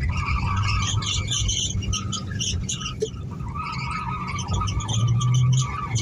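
Car tyres squealing unevenly as the car turns tight donut circles on tarmac, over a steady engine note that swells briefly about five seconds in.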